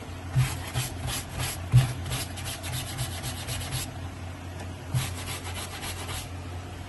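Wooden-backed scrub brush scrubbing a wet cotton shirt on a washing slab, in quick back-and-forth strokes at about four a second. It stops for about a second midway, then scrubs again briefly.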